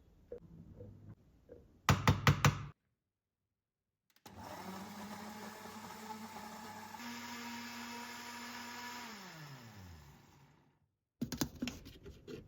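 An electric blender motor running steadily for about six seconds, then spinning down with a falling pitch, most likely blending dates with milk. It is preceded by a quick run of sharp knocks, with a few more knocks near the end.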